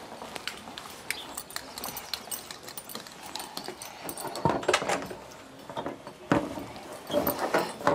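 A chalkboard menu sign knocking and clattering against a wooden wall as it is hung up, in irregular knocks with louder clusters around the middle and near the end.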